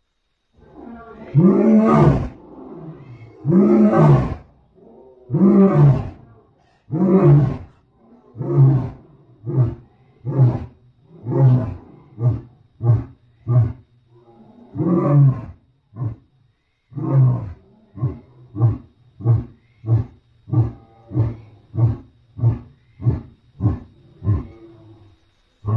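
Lion roaring bout used as a creature sound effect. It opens with several long, full-throated roars, then breaks into shorter grunts that come faster. One more long roar sounds about halfway, and the bout ends in a run of quick grunts about three every two seconds.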